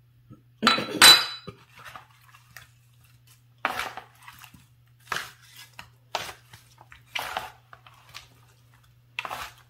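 Salad servers clattering in a wooden salad bowl as chunks of watermelon, cucumber and onion are tossed, in short strokes about once a second. The loudest sound is a clink and clatter about a second in.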